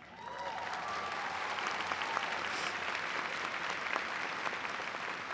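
Large audience applauding steadily, the clapping tailing off near the end.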